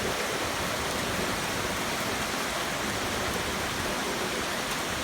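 Heavy rain pouring down, a steady even hiss of falling water with no separate drops or events standing out.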